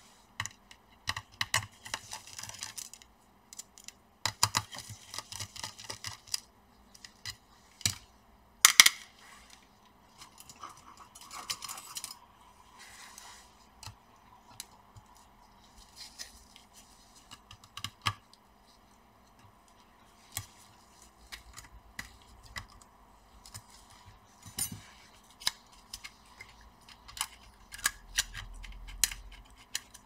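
A small screwdriver and tweezers working on an open laptop's screws, metal brackets and plastic parts: scattered sharp clicks and taps with short patches of scraping and rattling, and one louder click about nine seconds in.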